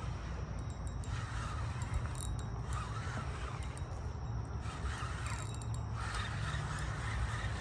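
Fishing reel being cranked, its gears and pawl ticking and whirring in spells of about a second, several times, over a steady low wind rumble.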